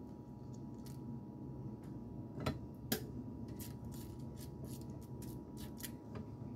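Faint irregular clicks and ticks of fingers working wet cantaloupe seeds in a wire-mesh strainer, a couple of them a little louder midway, over a low steady hum.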